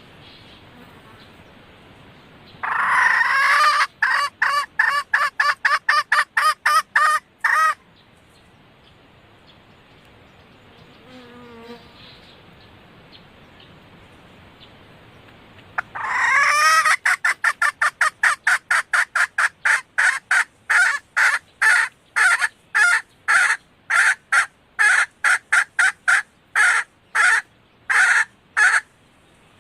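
Red junglefowl hen calling in two bouts of short, rapidly repeated clucking notes, about three a second. The first bout lasts about five seconds; the second starts about sixteen seconds in, runs for about thirteen seconds and slows toward the end. This is the hen's call to cocks that trappers play as a lure.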